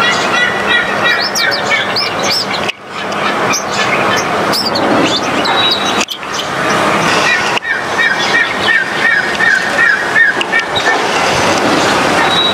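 Small birds chirping and calling in quick repeated notes over a loud, steady rushing background noise. The sound drops out briefly and restarts a few times.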